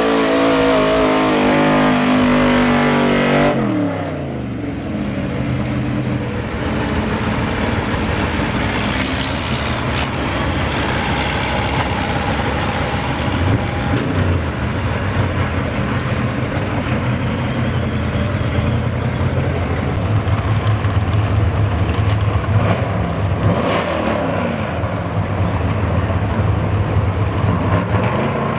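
Gas-engined 4x4 pickup pulling truck running flat out under load, its revs dropping off sharply about three and a half seconds in as the pull ends. After that, engines idle and rumble at lower revs with a few small blips of throttle.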